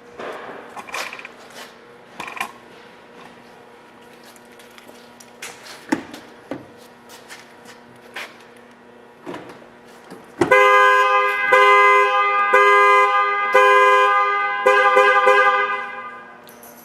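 Car horn sounding as the output of an armed Fortin EVO-ALL stand-alone alarm that has been triggered: a loud honk broken about once a second, lasting about five seconds before it stops. Earlier there are a few scattered sharp knocks.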